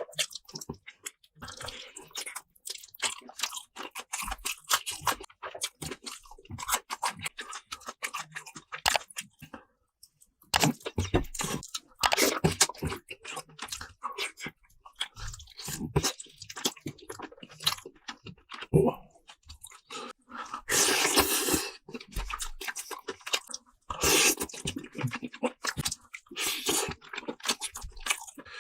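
Close-miked chewing and crunching of food: many short wet clicks and crackles, with a few longer rushes of noise in between.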